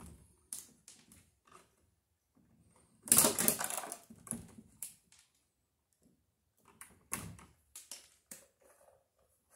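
Hand pliers and electrical wires clicking and scraping against a plastic electrical box as the wires are worked, with a louder scraping rustle about three seconds in and another cluster of clicks near the end.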